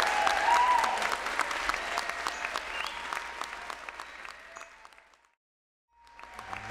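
Audience applauding, the clapping fading away over about five seconds. After a brief cut to silence, a song's music begins near the end.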